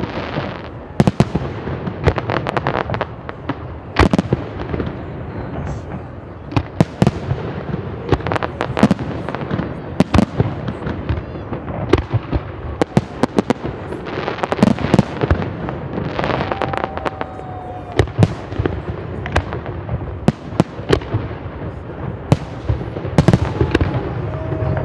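Fireworks display: aerial shells launching and bursting in an irregular, rapid series of sharp bangs, with dense bursts of crackling.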